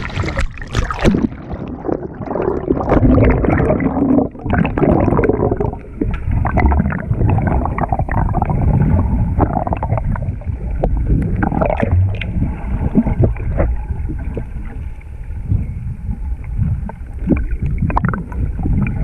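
Sea water sloshing and gurgling around a camera held at or under the surface, heard muffled, with irregular splashes and knocks.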